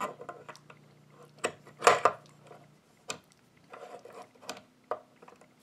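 Steel knife blade clicking and scraping against the metal vise jaws of a Wicked Edge knife sharpener as it is seated in the clamp. A series of light, irregular clicks and rubs, the loudest about two seconds in.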